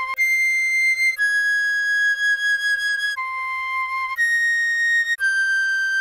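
Recorder playing a slow melody of single held notes, moving to a new note about every one to two seconds, over a steady lower sustained tone.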